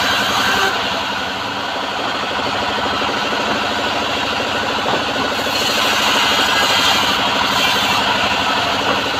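Homemade bandsaw sawmill running steadily under its engine, with a brighter hiss joining in during the second half.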